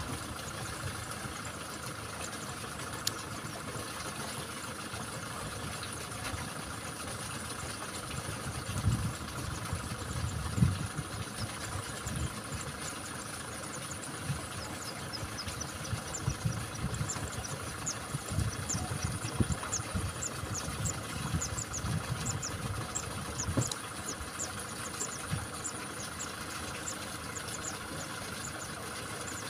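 Kubota tractor's diesel engine idling steadily while the tractor stands in a flooded paddy. Irregular low thumps and rumbles come through the middle, the loudest about ten seconds in.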